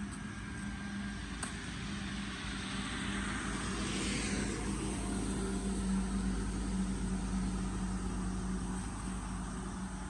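Traffic on a wet road: a steady low engine hum, with tyre hiss swelling as a vehicle passes about halfway through and then fading.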